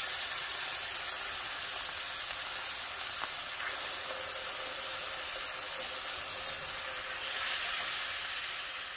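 Marinated beef flank steak sizzling in hot oil in a grill pan, a steady hiss that grows a little louder near the end as the steaks are turned over with tongs.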